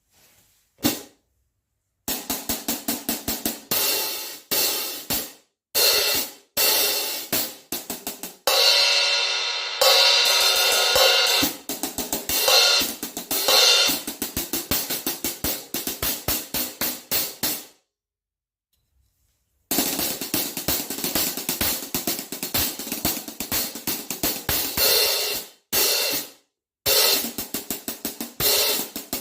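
Omete 15-inch Zed Custom hi-hats being played: runs of quick, short closed strikes, with a longer open, ringing wash about eight seconds in. The playing stops for a second or two before the quick strikes resume.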